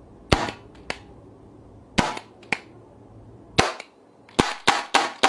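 Gas-powered gel blaster revolver, charged with R22 refrigerant gas, dry-firing blank shots with no gel balls loaded: sharp pops. The first three come a second or more apart, some followed by a lighter click, then four come in quick succession near the end.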